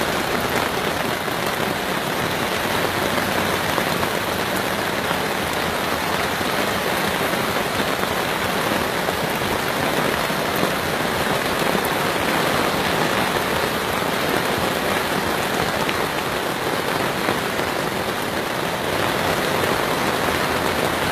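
Heavy rain pouring down, steady and loud.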